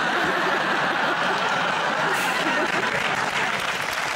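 Studio audience applauding and laughing, a steady dense clapping at an even level throughout.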